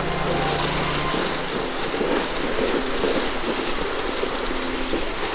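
Dog sled moving over snow: a steady rough scraping hiss from the runners. A low steady hum underneath stops about a second in.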